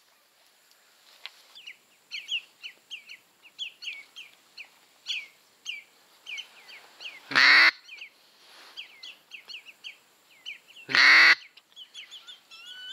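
Wild birds calling over a marsh: a run of short, high chirps repeating several times a second, broken twice in the second half by a single loud call about half a second long.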